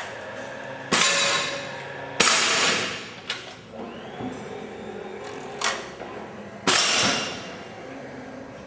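Shooting with a break-barrel air rifle: about five sharp cracks or clanks at uneven spacing, each with a short ringing tail.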